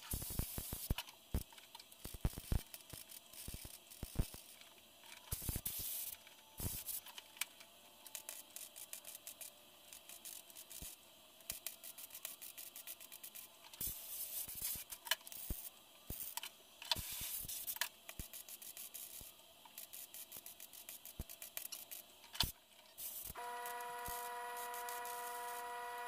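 Short crackling bursts of MIG tack welding on thin sheet steel, with hissing blasts of compressed air from a blow gun between tacks. Near the end a steady hum of several tones starts.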